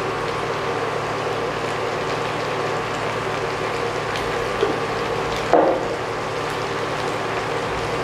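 Stir-fry sizzling steadily in a frying pan on an induction cooktop as seasoning is shaken in. Two light knocks about four and a half and five and a half seconds in.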